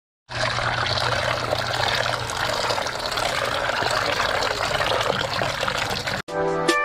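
Running tap water splashing into a basin while hands swish and rub cut moringa pods in it, a steady wash of water noise. It cuts off abruptly about six seconds in, and music starts.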